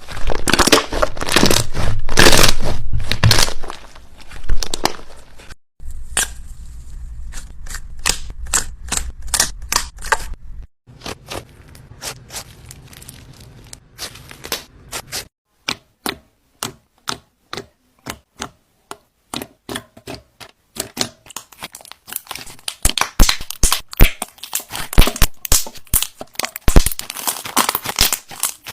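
Slime being handled by hand, making sticky pops, clicks and crackles, in several short segments that start and stop abruptly; the clicks are dense at first, thin out to separate pops in the middle, and come thick and fast again near the end.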